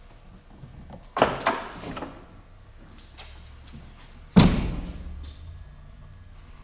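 Pickup tailgate on a 2020 GMC Sierra being opened: a double clunk of the latch about a second in, then a louder metallic clunk about four seconds in as the gate drops to its open stop, ringing briefly.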